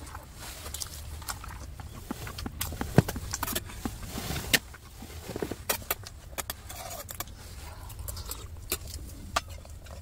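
Chopsticks clicking and scraping against stainless steel plates as rice and eel are picked up, a string of sharp irregular clicks with the loudest about three seconds in, over a low steady rumble.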